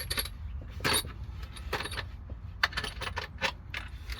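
Small steel bolts and washers of a steering wheel puller kit clinking and rattling against each other as they are handled, in a run of sharp clinks with a quicker cluster past the middle.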